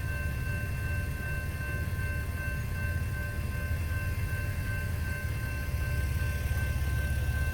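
General Signals Type 2 electronic crossing bell ringing steadily, with a strong low rumble beneath it from the train and traffic at the crossing.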